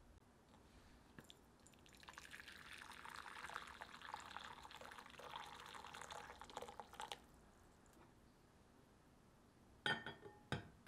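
Hot water poured from a kettle into a glass bowl for about five seconds, filling a water bath. Near the end come two sharp glass-on-glass clinks as a glass mixing bowl is set down onto it.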